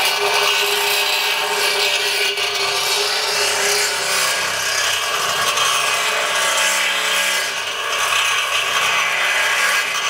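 Power drill boring out a bolt hole in the steel mounting foot of a vertical air compressor tank, the bit grinding and rasping against the metal without a break. The hole is being widened to fit the larger anchor studs.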